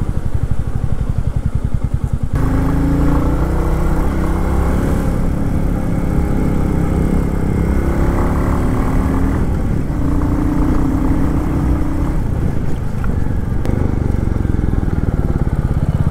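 Motorcycle engine running while the bike is ridden, heard from on the bike. About two seconds in the engine note changes, then rises and falls gently as the throttle varies.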